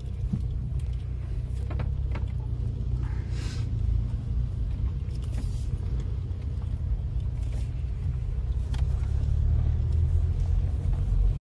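Car engine and tyre noise heard from inside the cabin while driving slowly on an unpaved track: a steady low hum. It cuts off abruptly near the end.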